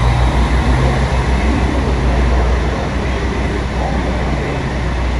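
Scania K400 coach's six-cylinder diesel engine running at low revs as the double-decker moves off slowly, a deep steady rumble.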